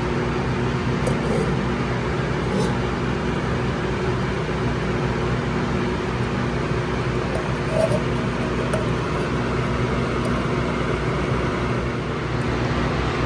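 Steady low hum with an even hiss, unchanging throughout, with no distinct knocks or pours standing out.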